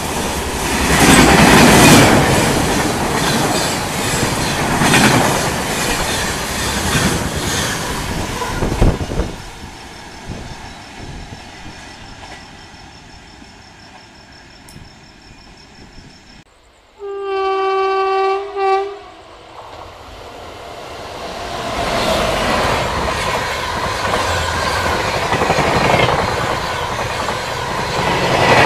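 Indian Railways express train of red LHB coaches rushing past at speed, wheels clattering over rail joints, until the sound drops away about nine seconds in. After a quieter stretch, an electric locomotive's horn sounds one long blast and a short one. Another express's rumble then builds as it approaches and runs past at speed near the end.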